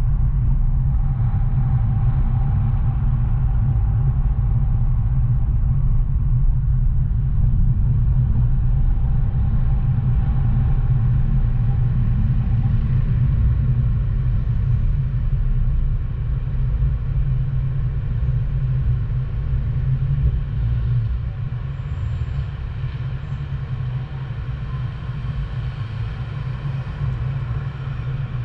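Low, steady rumble of a car driving, with road and engine noise, easing a little in the second half.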